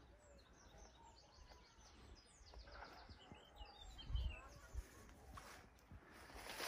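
Faint bird song: runs of quick, high, repeated chirps through the first three seconds or so, over quiet outdoor ambience. A low thump comes about four seconds in, and rustling noise near the end.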